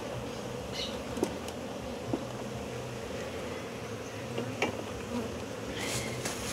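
Honey bees from an opened hive buzzing steadily as a swarm, with a few light clicks from the wooden frames and comb being handled.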